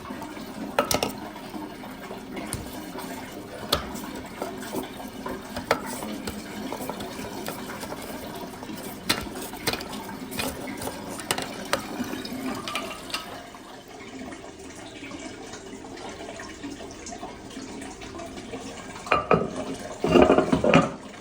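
Toilet cistern filling with water, a steady hiss, with scattered sharp clicks and clinks from handling at the cistern through the first half. A few louder knocks come near the end.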